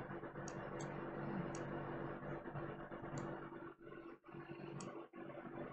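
Faint background room noise with a steady low hum, and a few soft computer-mouse clicks spread through it.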